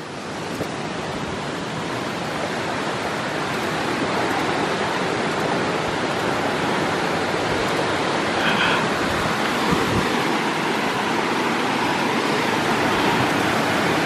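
Rushing water of a small waterfall, a steady wash of noise that grows louder over the first few seconds and then holds.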